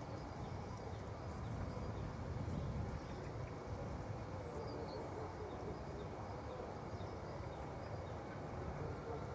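Wind buffeting the microphone as a low, uneven rumble, with faint bird chirps over it.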